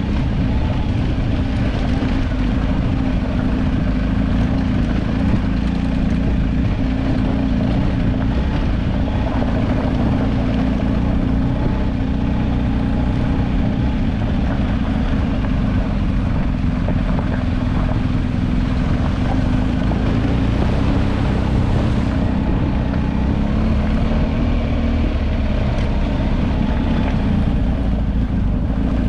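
An engine running steadily under way: an even, unbroken drone with most of its weight low down.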